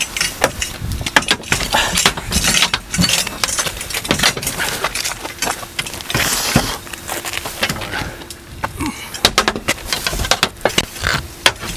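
Steel crowbars clanking and scraping against a steel gun safe as several people pry at its door: a busy run of sharp metallic knocks and scrapes.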